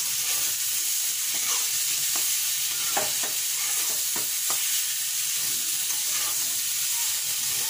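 Ridge gourd and potato pieces frying in oil and spices in a wok, sizzling steadily while a spatula stirs them, with a few sharp scrapes and taps of the spatula against the pan.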